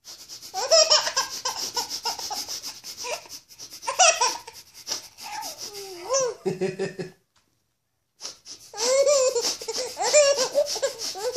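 A baby laughing hard in long, pulsing peals, breaking off for about a second some seven seconds in, then laughing again.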